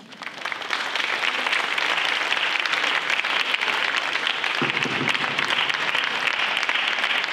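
Audience applauding: the clapping builds up within the first second, then holds steady.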